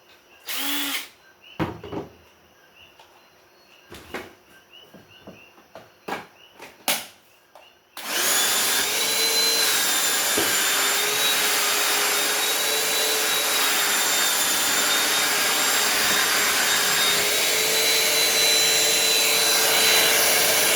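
A few scattered clicks and knocks. Then, about eight seconds in, a Ryobi 18-volt cordless vacuum switches on suddenly and runs steadily, its motor holding a steady whine over the rush of air.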